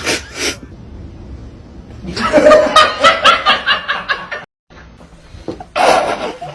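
A person laughing hard in quick repeated bursts for about two seconds, breaking off suddenly, with a shorter burst of sound near the end.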